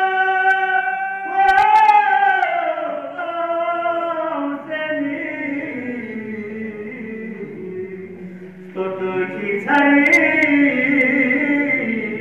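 Unaccompanied male chanting of a Balti qasida, a devotional poem. A long held note ends about a second in, followed by a phrase that slides down in pitch with ornamented turns, and a new loud phrase begins about nine seconds in.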